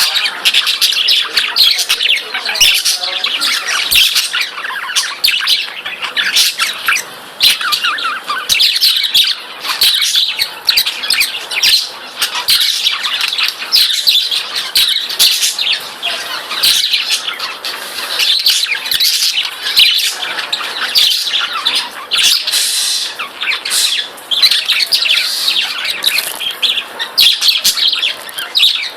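Several pet budgerigars chattering and squawking without a break: fast warbling chirps with sharp clicks mixed in.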